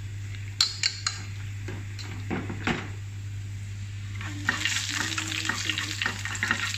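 A utensil clinks against a cooking pot a few times. From about four and a half seconds in, chopped garlic and chili sizzle and crackle in hot oil in a frying pan as they are stirred with chopsticks. A steady low hum runs underneath.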